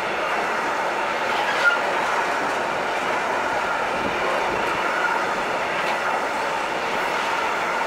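Container flat wagons of a freight train rolling past, a steady rolling noise of steel wheels on rails. A brief high squeal comes about a second and a half in.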